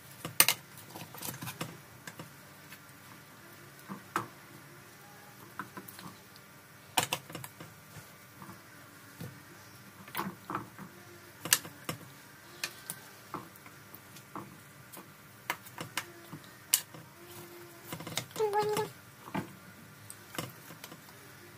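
A spatula clicking and knocking against a frying pan and a multicooker's bowl as fried duck pieces are lifted across, in irregular taps. A brief meow about 18 seconds in.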